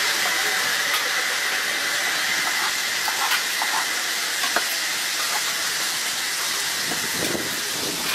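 Kielbasa sausages and sauerkraut sizzling on a large round frying pan, a steady hiss, with a few light clicks of metal tongs.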